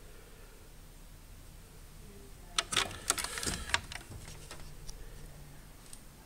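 Door of an old Hotpoint Reversomatic tumble dryer being pulled open: a quick cluster of sharp clicks and knocks from the latch and door, lasting about a second, a little over halfway through.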